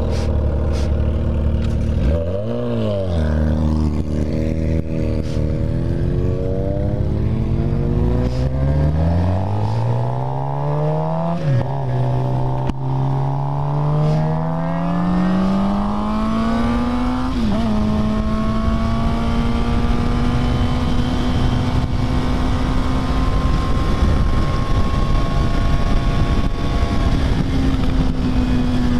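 Sport motorcycle engine giving a short rev, then pulling away and accelerating up through the gears, its pitch climbing and dropping at each upshift. It then settles into a steady cruise for the last ten seconds or so, with wind rushing over the bike.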